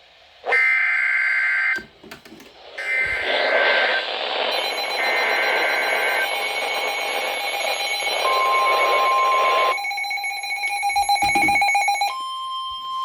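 Several emergency alerts going off over one another. Three short bursts of screeching data header sound in the first six seconds. Loud overlapping noisy alert audio runs under them, and a steady single-pitch alert tone sounds about eight seconds in and again from about twelve seconds.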